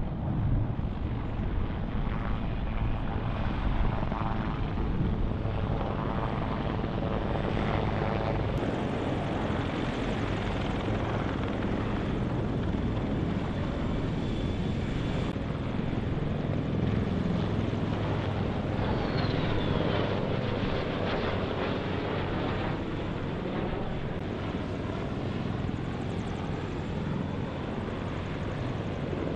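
Military helicopters flying low: steady rotor beat and turbine noise from a CH-53 heavy-lift helicopter and an AH-1Z Viper attack helicopter. About two-thirds of the way through, a whine falls in pitch as one passes.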